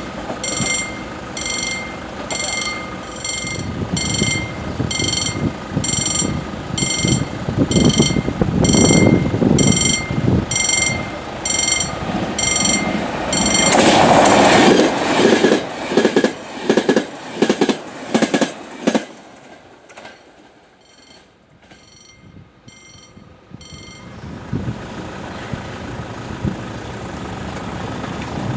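A level-crossing warning bell rings in evenly spaced strikes while a CP Alfa Pendular 4000 tilting electric train approaches and passes at speed, loudest about halfway through, its wheels clattering rhythmically over the rail joints as it goes by. After the train fades, a steady engine hum comes in near the end.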